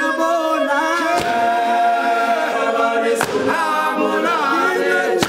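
Male group singing a gwijo-style song a cappella in harmony, several voices together with one line held long, and two sharp claps about two seconds apart.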